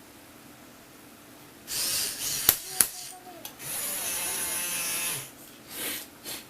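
A small electric motor whirring in short runs, with two sharp clicks between the first and second runs.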